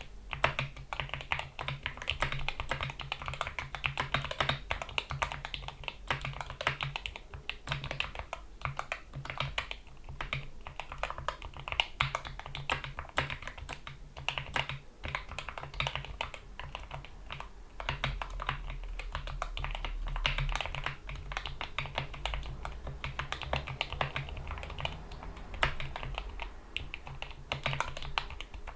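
Continuous fast typing on a GK61 mechanical keyboard with lubed Gateron Yellow optical switches, PBT keycaps and rubber O-rings under the keys: a dense, steady stream of key clicks.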